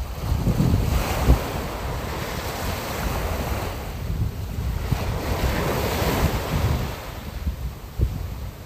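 Sea surf washing in, swelling and easing twice, over a low rumble of wind on the microphone.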